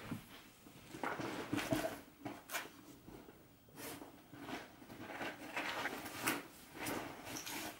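Faint, intermittent rustling and knocking of someone rummaging through a bag, searching for a missing item.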